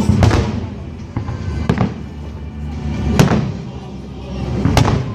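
Fireworks shells bursting overhead in a salute display: about five sharp bangs, the loudest about three and five seconds in, with music playing underneath.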